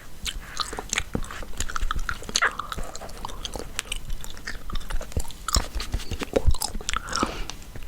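Chewing gum being chewed close to the microphone: a continuous run of irregular clicks and smacks.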